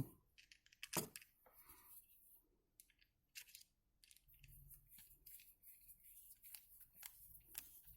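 Faint small clicks and scrapes of a screw being turned into a plastic plug housing, a sharper click about a second in.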